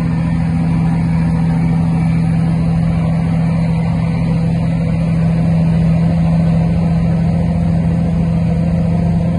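Heavy diesel truck engine running at a steady pitch, heard from inside the cab on the move.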